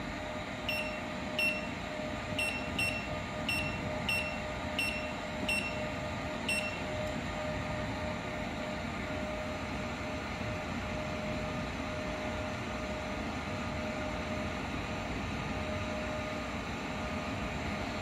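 Touchscreen control panel of an automatic coaxial cable stripping machine beeping as keys are pressed: about nine short high beeps at irregular intervals over the first seven seconds, then none. A steady hum runs underneath.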